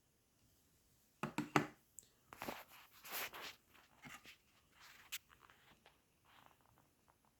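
Handling noise from a plastic wall thermostat: a cluster of sharp clicks a little over a second in, then irregular rubbing and scraping of the casing.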